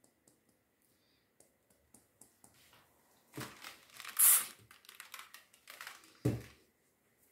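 Rustling and crinkling handling noises with scattered light clicks, loudest a bit past the middle, then a short dull thump near the end.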